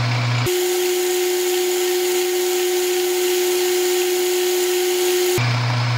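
Metal lathe running with its chuck spinning: a steady motor hum, which about half a second in changes to a single steady higher whine over a hiss, and returns to the low hum near the end.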